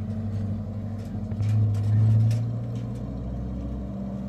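A motor vehicle's engine running with a steady low hum. It swells louder for about a second in the middle, then settles, and its pitch shifts near the end.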